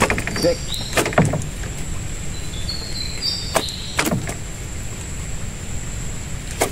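Scattered knocks and bumps against a wooden boat as a freshly landed fish is held and unhooked, with a few short high chirps and a steady thin high whine in the background.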